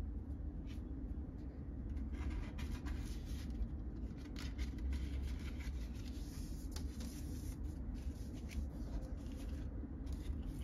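Paper and card being handled: album inserts and photocards rustling and sliding against each other, with small clicks, busiest in the middle, over a steady low hum.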